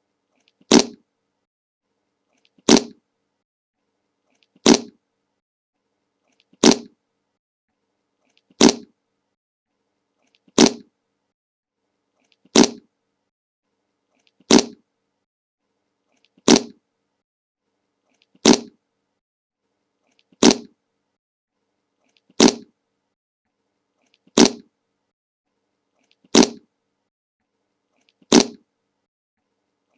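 Short meme fart sound effect played on a loop, the same brief sharp burst repeating about every two seconds with silence between.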